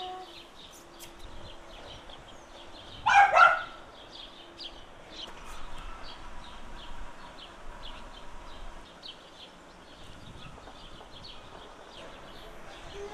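A dog barking twice in quick succession, about three seconds in, over faint, rapid high-pitched chirping.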